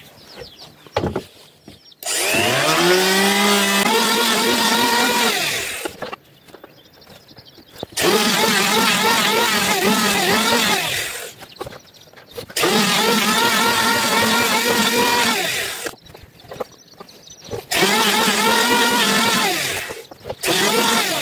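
Electric hand planer shaving the high spots off a warped toon-wood plank to straighten it, in four passes. Each pass is a motor whine that starts and stops; the first rises in pitch as the motor spins up, and the pitch wavers as the blade bites into the wood.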